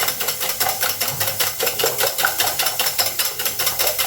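Cake batter being whisked in a bowl: a fast, even run of scraping taps at about seven strokes a second.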